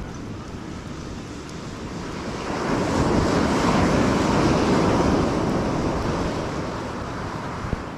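Surf on the beach: a wave breaks and washes in, swelling about two and a half seconds in and slowly fading. Wind rumbles on the microphone throughout.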